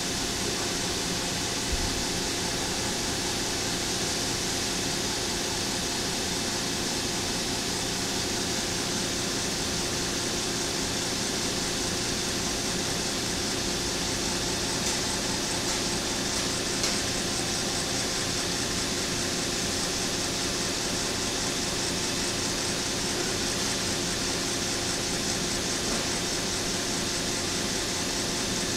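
Indelac LA7B-12 multi-turn electric valve actuator running steadily, its motor and gearing giving a continuous hum with several steady tones, as it turns the valve stem to stroke the valve open in response to a control signal change. A faint knock comes about two seconds in and again midway.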